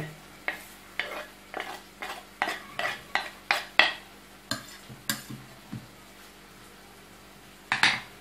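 Sharp scrapes and taps, about two a second, as chopped parsley and garlic are scraped off a wooden cutting board into a pan of grated vegetables, then a pause and one louder scrape near the end.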